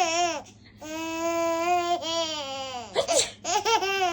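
Baby vocalizing in drawn-out babbling sounds: a long held note, then wavering notes that fall in pitch, with a short breathy burst about three seconds in.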